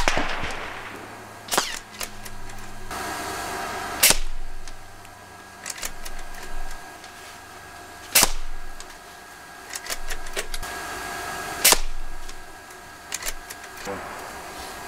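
AGT Vulcan 3 .22 PCP air rifle firing 34-grain flat-base slugs: sharp shots about every four seconds, with lighter clicks between shots over a steady hum.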